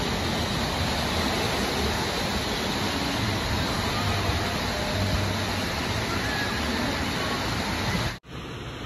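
Steady rushing of running and splashing water from water-park slides and pools, with a low rumble under it; it cuts off suddenly about eight seconds in.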